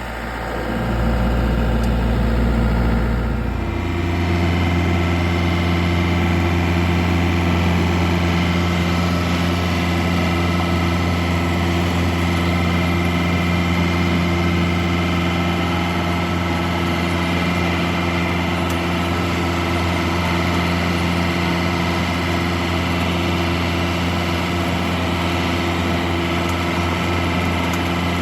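Engine of a rice harvesting machine running steadily; its note changes about four seconds in, then holds even.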